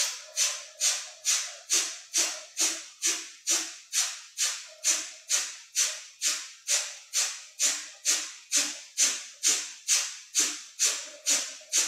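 Kapalabhati (breath of fire): sharp, forceful exhales through the nose in a steady rhythm of a little over two a second, each a short hiss of air that dies away quickly.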